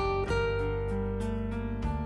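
Background music: plucked guitar notes, a new note every half second or so.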